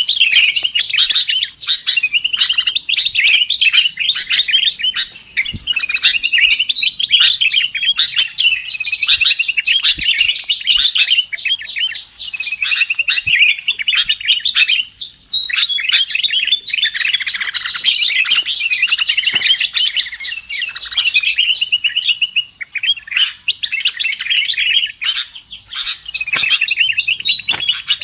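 Sooty-headed bulbuls (kutilang) calling and chattering nonstop, many quick chirps and trills overlapping as if from several birds at once. This is a bird-trapping lure call.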